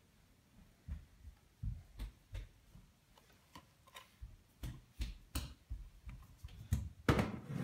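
Soft, irregular taps and thumps of a baby's hands on a plastic high-chair tray, with a louder knock about seven seconds in.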